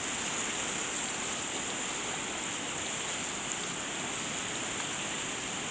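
The Teesta River in flood, rushing past in a steady, even roar of water.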